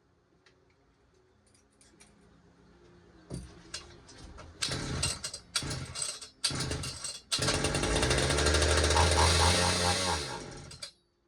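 Pioneer P-41 66cc two-stroke chainsaw being pull-started: three short pulls, then the engine fires and runs for about three seconds before cutting out suddenly, because it is not yet picking up fuel through the fuel line.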